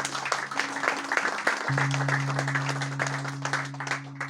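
Audience applauding over a ringing acoustic guitar chord, which is strummed again a little under two seconds in. The applause thins out near the end.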